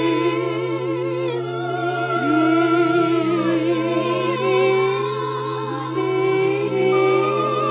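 Several voices singing long, overlapping held notes with a wavering pitch, over a steady low drone.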